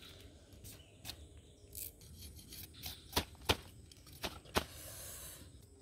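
Roasted sugarcane stalk being broken and peeled: a run of irregular sharp snaps and cracks, the loudest few around the middle, then a brief rasping tear near the end.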